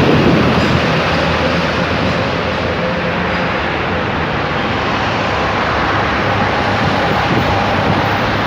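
Steady loud rushing noise with no clear events, with a low engine-like hum beneath it that fades out about three and a half seconds in.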